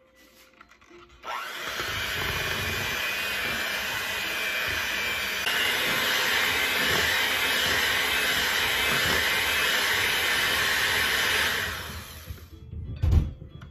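Electric hand mixer switched on about a second in, its beaters running steadily through flour and batter in a large bowl. It steps up louder about halfway through and stops near the end, followed by a single loud knock.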